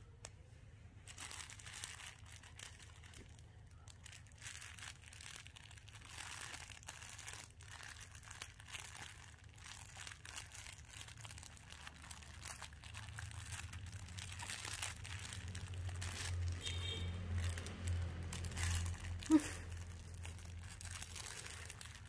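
Crinkle paper inside a soft fabric baby book rustling and crackling as the book is handled and squeezed, in many small rapid crackles. A brief sharp sound near the end is the loudest moment.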